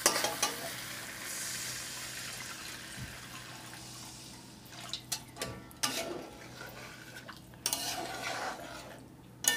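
Water poured into a hot metal kadhai of fried masala, potatoes and drumstick pieces, hissing steadily for about four seconds. From about halfway through, a spatula stirs and scrapes against the pan with scattered clicks.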